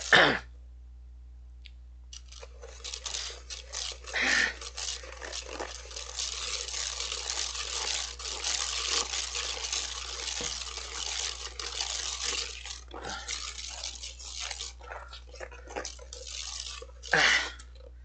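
Wire balloon whisk beating dalgona coffee (instant coffee, sugar and water) by hand in a stainless steel mixing bowl. It makes a fast, continuous scratchy rattle of wire against the bowl and the thickening mixture, starting a couple of seconds in and thinning out near the end. Two brief louder sounds stand out, about four seconds in and just before the end.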